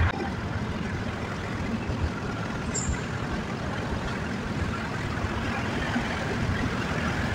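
Steady road and engine noise of a car driving at highway speed, heard from inside its cabin. There is a brief high squeak about three seconds in.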